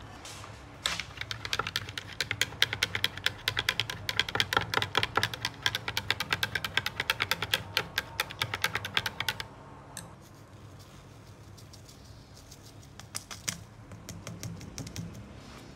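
A drink being stirred in a glass mug, the stirrer clinking rapidly and steadily against the glass for about eight seconds. A shorter, lighter run of clinks follows near the end, over a low steady hum.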